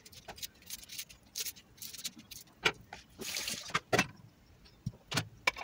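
Small clicks and crackles of dry onion skin being peeled off with a knife, then a few sharp knocks and taps of kitchen things being handled in the second half.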